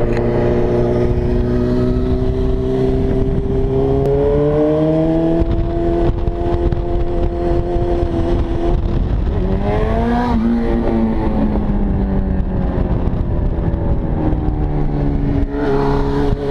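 A 2006 Suzuki GSX-R1000's inline-four engine running at a cruise, its pitch climbing slowly, then revving up and back down briefly about ten seconds in and dropping again near the end, over steady road rumble.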